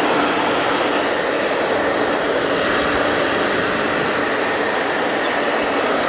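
Handheld hair dryer running steadily, blowing air over a wet cockatiel chick's feathers to dry them.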